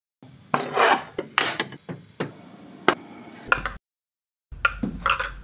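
Scraping and rubbing noises with several sharp knocks, broken by an abrupt cut to dead silence partway through.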